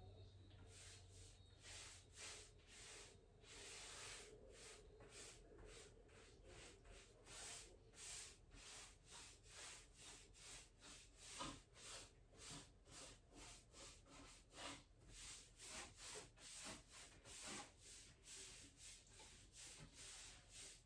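Faint rubbing strokes of a paint sponge working paint onto the wooden furniture, repeated about twice a second, applying a second coat.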